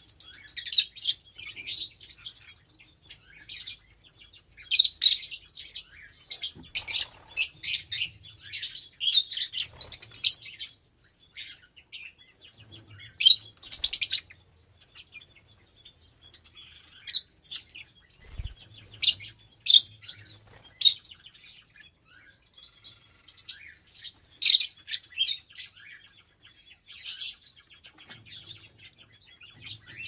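Lovebirds chirping and chattering: many short, high-pitched chirps in quick clusters, broken by brief lulls.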